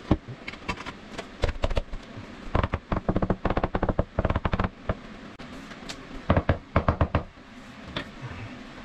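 A mallet tapping a ceramic wall tile in three runs of quick knocks, seating it into thinset mortar on cement board.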